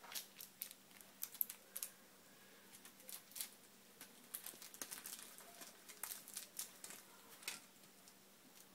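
Faint, irregular clicks and rustles of a microfiber drawstring pouch being pinched, opened and shaken by fingers, busiest in the second half.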